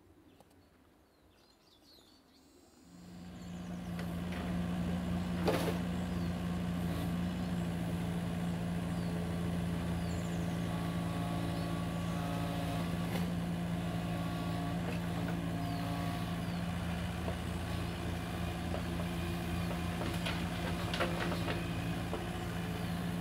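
After about three seconds of near quiet, a Kubota KX71-3 mini excavator's diesel engine running steadily under load as it digs, with a few short knocks from the work.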